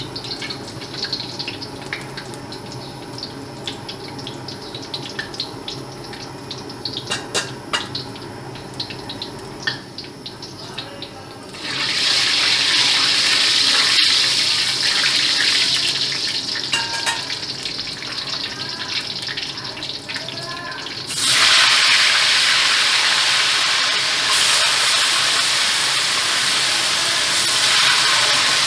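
Rohu fish pieces frying in hot oil in a steel karai: at first only scattered faint crackles from the heating oil, then a sudden loud sizzle about twelve seconds in as fish goes into the oil, easing a little and surging again about twenty-one seconds in as more pieces go in, then holding steady.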